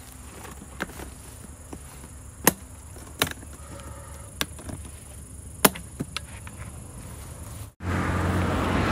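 Sharp clicks and knocks of hard plastic, about six spread over several seconds, as the ribbed dome cover of a fiber optic splice closure is handled and slid over the splice trays. Near the end the sound cuts off abruptly and gives way to the steady rush of a passing vehicle.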